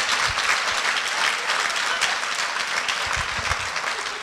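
Congregation applauding, a dense steady clapping that eases off slightly near the end.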